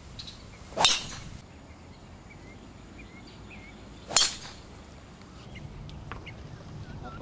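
Two golf tee shots, a club head striking the ball twice about three seconds apart, each a sharp crack with a brief ring.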